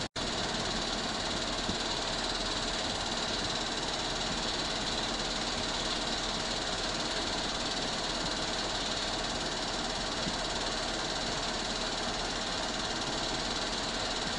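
Steady mechanical running noise with hiss, unchanging throughout, with a brief dropout just after the start.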